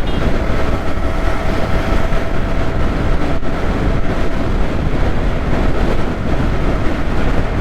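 Steady wind buffeting and road noise on the mic of a Yamaha R15 V3 motorcycle at riding speed, with its single-cylinder engine running underneath and a faint steady whine that fades near the end.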